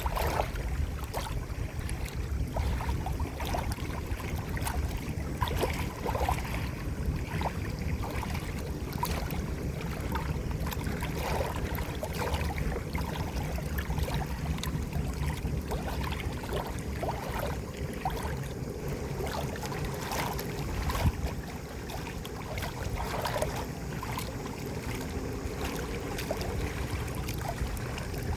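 Moving water, with many small splashes and gurgles over a steady low rumble.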